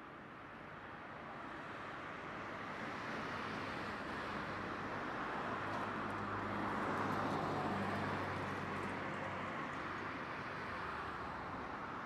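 A motor vehicle passing by: a rush of engine and road noise with a low hum, which swells to its loudest about seven seconds in and then fades.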